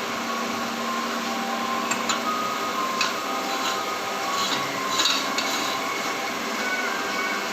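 Motor-driven meat mincer running steadily, with a few sharp metallic clicks and knocks about two, three, and four to five seconds in.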